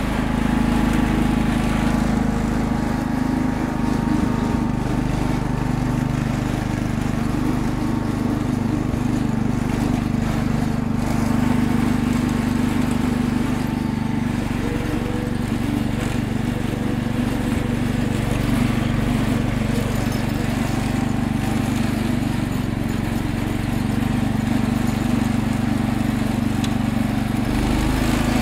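Wheel Horse 310-8 garden tractor's Kohler single-cylinder engine running steadily under load as the tractor pushes heavy wet snow with its front plow blade.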